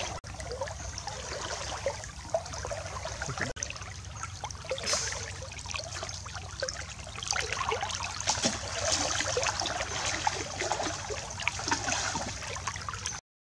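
Water splashing and trickling in many small, irregular splashes and drips; the sound cuts off suddenly near the end.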